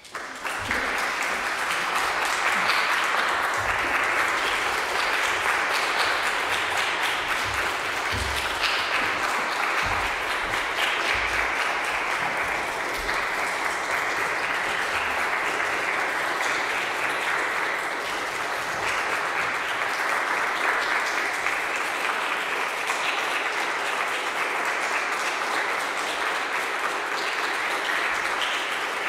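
Audience applauding: the clapping breaks out suddenly after a silence and then keeps up steadily.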